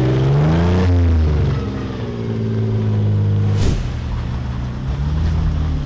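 Solid-axle-swapped Toyota Tacoma pickup's engine revving up off-road, its pitch rising then holding steady. About halfway through it cuts to another truck's engine, which revs up and down twice.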